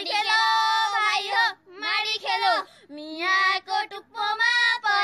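A high female voice singing a traditional Nepali threshing song unaccompanied, in long held, wavering notes and shorter phrases broken by brief pauses.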